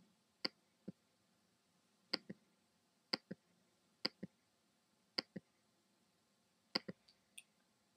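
Clicks of a computer pointer button while adjusting settings, most heard as a close press-and-release pair, roughly once a second, with a quick cluster of three near the end.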